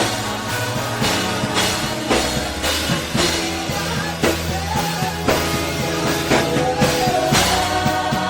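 Live gospel worship music from a band, with a drum kit keeping a steady beat.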